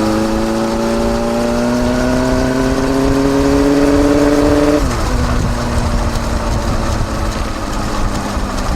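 Kawasaki Balius 250 inline-four exhaust note through a Wr's aftermarket muffler with its baffle fitted, recorded right at the silencer while riding. The revs climb steadily for about five seconds, then drop sharply and hold steady at a lower pitch.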